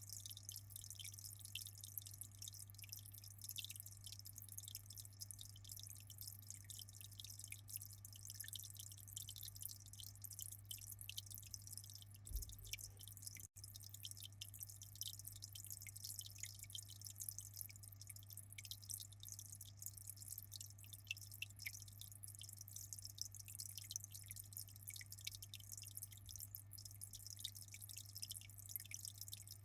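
Faint aquarium water trickling and dripping: a dense, steady patter of small drops and fizzing over a constant low hum. The sound cuts out for an instant about thirteen seconds in.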